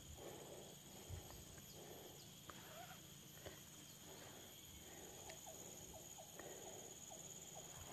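Faint, steady insect chorus of high-pitched buzzing tones, with soft rustles and a few small clicks.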